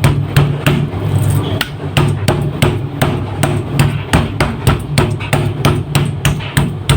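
Meat mallet pounding raw chicken breast to flatten and tenderise it, in steady repeated strikes about three a second.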